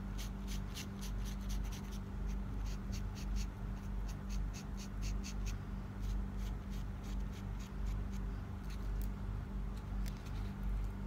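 Gold paint marker tip ticking and scratching against a hard resin mask as its raised lines are painted. The ticks come in quick runs for about the first six seconds, then thin out, over a steady low hum.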